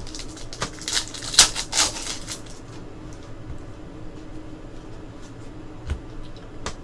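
Trading cards sliding and snapping against each other as a stack is thumbed through by hand. There is a flurry of crisp slides about a second in, then a few isolated clicks.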